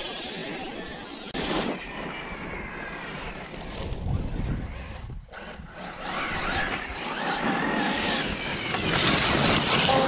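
Losi 5ive-B 1/5-scale RC buggy's brushless electric motor whining as it speeds up and lets off, over the crunch of its tyres on sand and gravel. A sharp knock about a second in.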